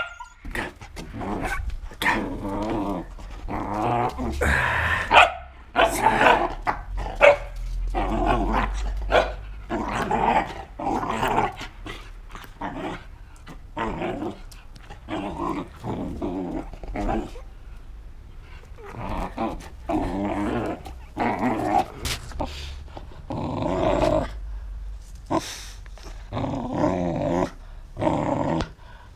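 Belgian Malinois play-growling and barking in short, irregular bursts while it lunges and snaps at a fur toy.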